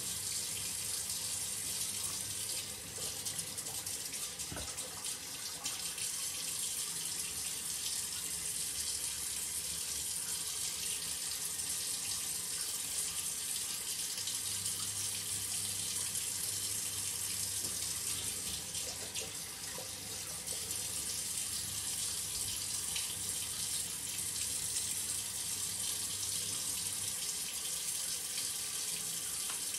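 Shower running: a steady rush of water.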